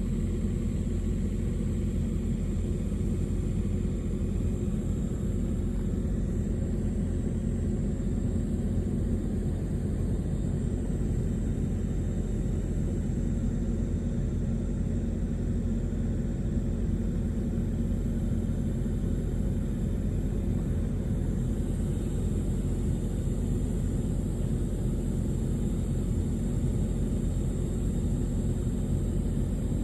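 Steady low rumble of outdoor background noise, even throughout, with no distinct events standing out.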